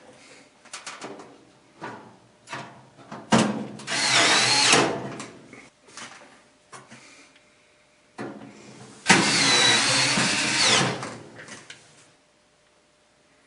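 Power drill driving in the two screws that hold a dryer heating element, two runs of about a second and a half each, some five seconds apart, each with a whine that shifts in pitch. Light clicks of handling come before them.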